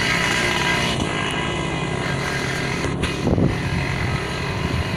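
Vespa scooter engines running steadily as the scooters ride along a rough dirt track. The sound swells briefly a little over three seconds in.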